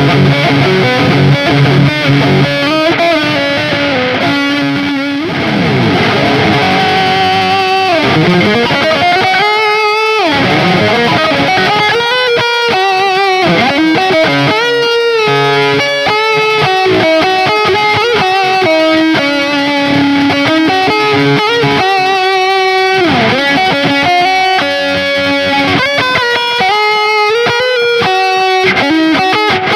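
Electric guitar with stock Ibanez STD C1/C2 humbucker pickups, played through distortion: a lead line of sustained notes with several long sliding pitch sweeps.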